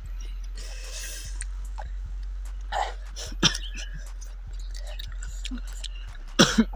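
Close-up mouth sounds of someone eating chilli-hot fruit rujak: chewing and lip smacks, with a sharp hiss of air drawn through pursed lips against the chilli heat about half a second in, and a louder short mouth sound near the end, over a steady low hum.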